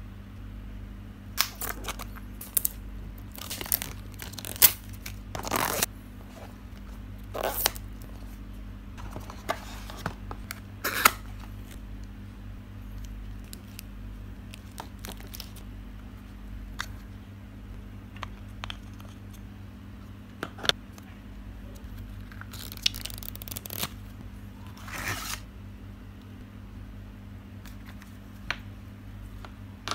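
Unboxing handling noise: a cardboard box and plastic packaging being opened and handled, with scattered bursts of tearing, crinkling and rustling and a few sharp clicks and taps. A steady low hum runs underneath.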